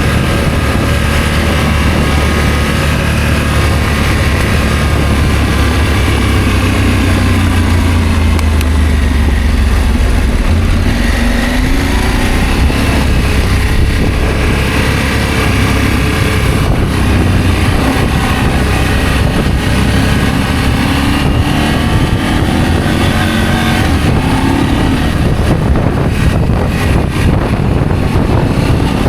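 Adventure motorcycle engine running while riding, its pitch rising and falling gently with the throttle.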